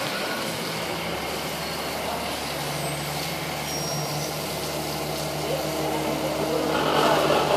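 A large vehicle's engine running steadily, a low hum that grows stronger a couple of seconds in, with a louder rush of noise near the end.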